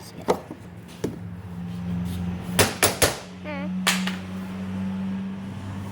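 Several sharp metallic knocks and clicks from tools and parts being handled in a car's engine bay, with a brief wavering squeak about three and a half seconds in. A steady low hum runs underneath.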